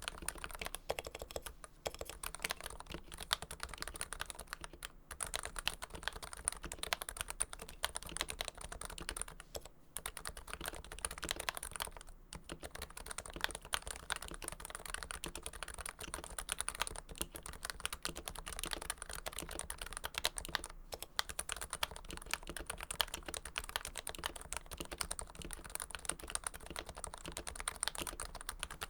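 Continuous fast typing on a Realforce keyboard with Topre electro-capacitive switches lubed with Krytox 105, giving a muted, deep thock; the steady run of keystrokes is broken by a few short pauses.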